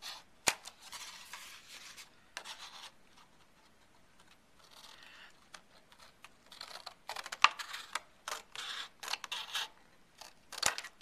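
Scissors cutting through cardstock in a run of irregular snips, with a quieter pause about three to four seconds in.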